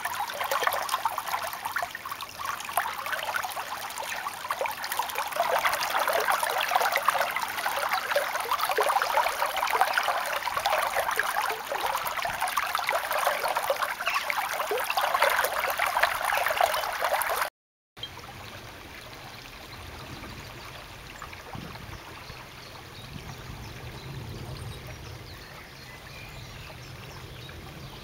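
Running stream water, a steady crackly babble. It cuts out briefly about two-thirds of the way through and comes back quieter, with a low rumble underneath.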